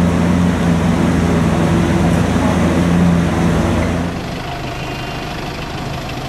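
Lamborghini Aventador Roadster's V12 idling with a steady, even hum. About four seconds in the engine sound drops away, leaving a quieter, different vehicle hum.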